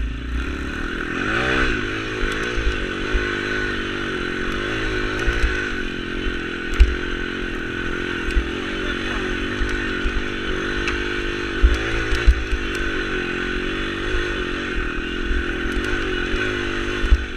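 Pit bike's YX 140 cc single-cylinder four-stroke engine revving up and down continuously while riding a rough dirt trail, with sharp knocks and rattles from the bumps.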